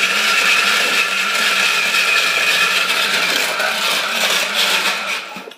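Countertop blender running steadily, crushing ice into shaved ice for snow cones, with a scraping rattle. It winds down and stops near the end.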